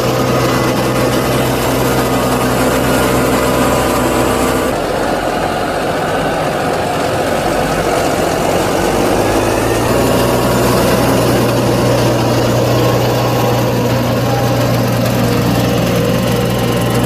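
Fendt Vario 930 tractor's engine running steadily as it drives over a silage clamp, pushing and spreading chopped maize with a Holaras leveller. The sound changes abruptly about five seconds in, and the steady low engine hum returns midway.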